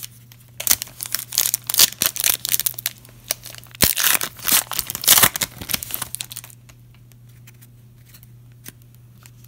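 A trading card pack wrapper being torn open and crinkled, a dense run of irregular crackles and rips lasting about six seconds that stops well before the end.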